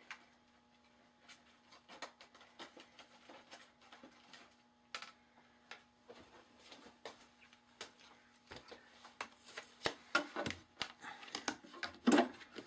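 Scattered light taps, clicks and rustles of craft supplies being handled on a desk, over a faint steady hum. They grow busier and louder over the last few seconds as a hand takes hold of the plastic embossing machine.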